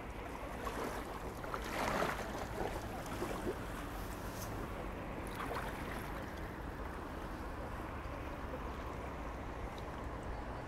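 Kayak paddling on a river: paddle splashes and water moving along the hull over a steady low rumble, with the loudest splashes about two seconds in.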